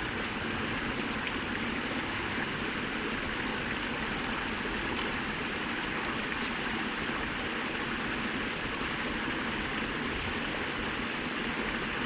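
A small creek's water running in a steady, even rush.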